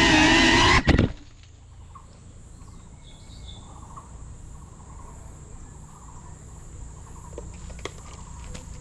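Background music that cuts off about a second in, leaving outdoor ambience: a steady high-pitched insect drone from the trees over a low rumble, with a few light clicks near the end.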